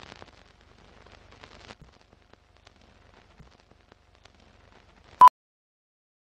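Film countdown leader: faint crackle and scattered pops like old film running through a projector, then a single short beep about five seconds in, the leader's sync 'two-pop'.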